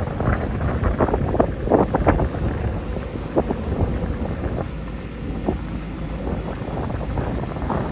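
Heavy diesel earthmoving machinery running with a steady low rumble, wind buffeting the microphone, and a few short knocks or scrapes in the first two seconds.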